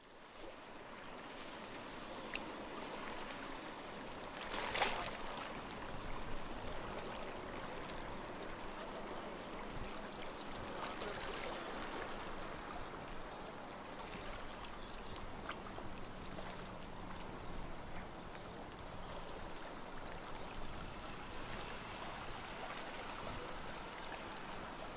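Small sea waves lapping and washing on the shore, with a brief louder rush about five seconds in.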